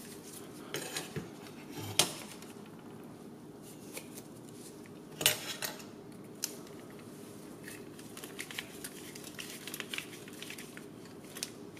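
Light clicks and taps of small frame parts and tools being handled while self-tapping screws are driven into a 3D-printed part, a few sharper knocks among many small ticks, over a steady low background hum.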